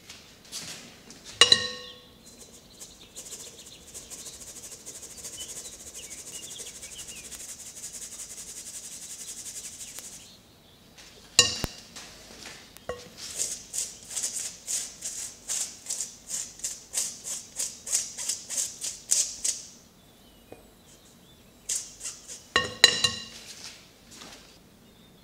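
Kitchen preparation sounds: a utensil clinks against a bowl with a short ringing tone, followed by a steady hiss for several seconds. After another clink come rhythmic strokes about three a second for six or seven seconds, and then a few more clinks near the end.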